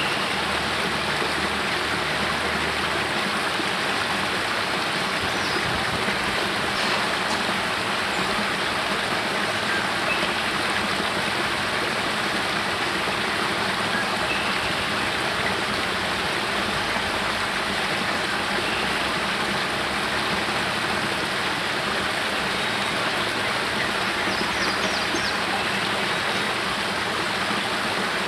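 Spring water spilling out of a cave mouth in a small cascade over rocks into a pool: a steady splashing rush of falling water.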